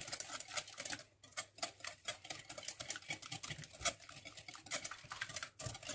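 Hand whisk beating an egg and sugar in a glass bowl: a quick, irregular run of light clicks and taps as the whisk strikes the glass.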